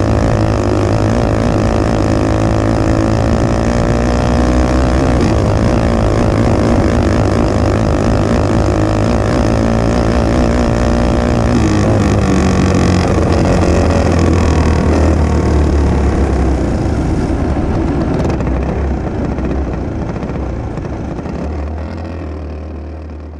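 A racing kart's single-cylinder engine heard from on board, running hard around the dirt track with its pitch rising and falling through the turns, under wind and track noise. After the checkered flag the engine backs off and the sound dies away near the end.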